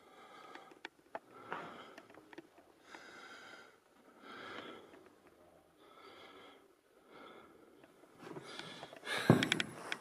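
A person breathing heavily close to the microphone, about one breath every second and a half, with small clicks between breaths. A louder knock comes near the end.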